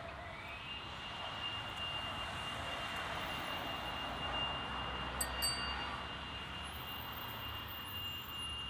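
Street traffic with a taxi passing close by, under a steady high-pitched ringing tone that steps up slightly in pitch at the start and then holds. Two short clicks a little after five seconds.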